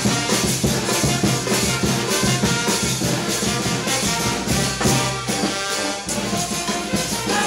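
Brass band playing lively dance music, horns over a steady beat.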